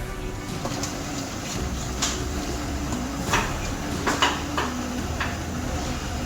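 Kitchen work: a handful of sharp clanks of pots and utensils over a steady low rumble, several of them close together around the middle.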